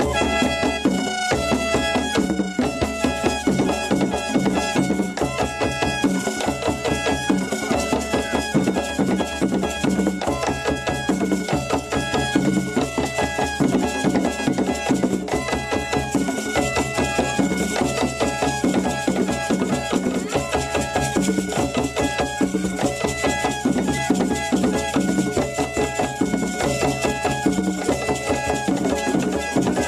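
Traditional African dance music: fast, steady drumming with a dense run of quick, short high notes over it.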